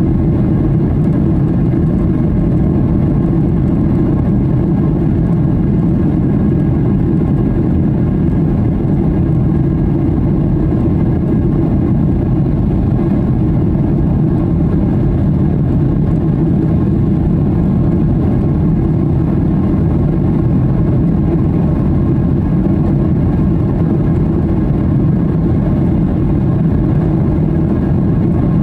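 Steady cabin roar of a Skymark Boeing 737-800 in flight: the jet engines and the rush of air over the fuselage, heard from a window seat over the wing. A deep, even drone without changes.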